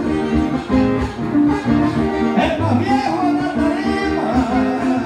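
Live Panamanian torrente: acoustic guitars strumming steady chords, with a man's voice singing a long, wavering drawn-out line in the second half.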